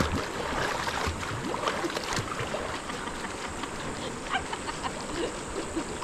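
River water flowing and splashing, with many small irregular splashes.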